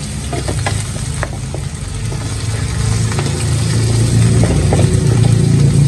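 Sliced mushrooms, butter and cream of mushroom soup sizzling in a hot pan while being stirred, the spatula clicking and scraping against the pan. A steady low hum runs underneath and grows louder about two seconds in.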